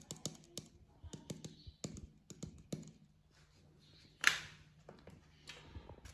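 Small quick clicks and taps of a spoon while garlic powder is spooned out, with one louder tap or scrape about four seconds in.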